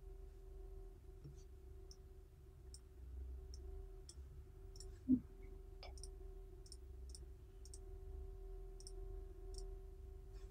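Computer mouse clicking about a dozen times at uneven intervals, faint, over a steady low hum. One dull thump comes about halfway through.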